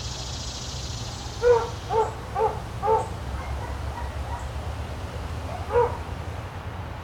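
A dog barking: four barks in quick succession, about two a second, starting about a second and a half in, then a single bark near the end.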